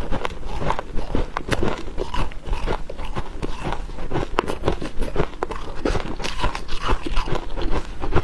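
Close-miked chewing of dry freezer frost: a dense, irregular run of crisp crunches and crackles.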